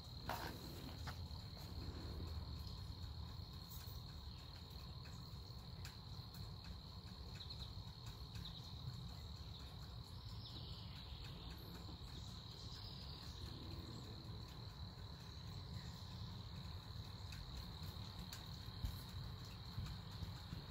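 Insects trilling steadily: one thin, high, unbroken tone, over a low rumble of outdoor background noise. A few soft knocks come near the start and near the end.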